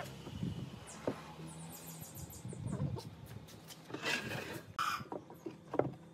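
Pine boards being handled on a wooden workbench: light knocks and clicks, and a short scrape of a board sliding across the bench about four seconds in. Chickens cluck in the background, and a small bird gives a quick run of high chirps about a second and a half in.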